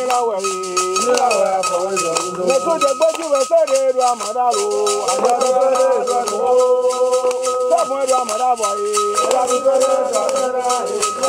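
Men chanting a song, one voice leading, over fast steady hand clapping and the shake of a rattle keeping the rhythm.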